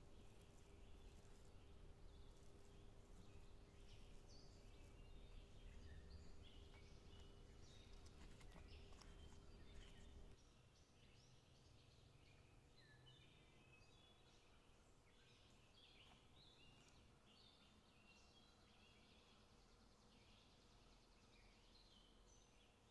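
Faint outdoor ambience with many short bird chirps scattered throughout. A low steady hum cuts off about ten seconds in.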